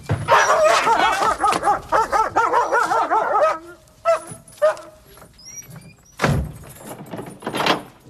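A dog barking and yelping in a fast, frantic run for about three and a half seconds, then a few single barks, with two heavy knocks near the end.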